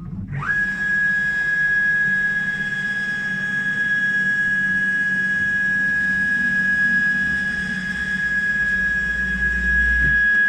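Stepper motors of a home-built CNC router driving its axes along 1605 ball screws during a homing cycle. A whine rises quickly in pitch as the motion starts, then holds one steady high note over a low hum.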